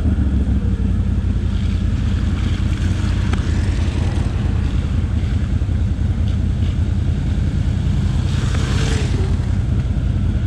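Can-Am Outlander 1000R XMR ATV's V-twin engine running at a steady pace under way, with wind and trail noise over it. A brief hissing rush rises about eight seconds in.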